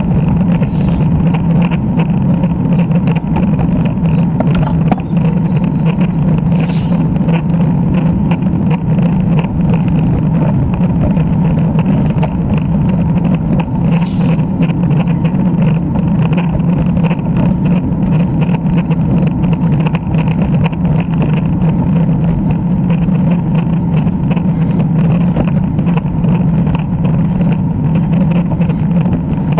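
Steady wind rush and road noise on the microphone of a camera riding along on a road bicycle, with a deep, even roar that stays level throughout.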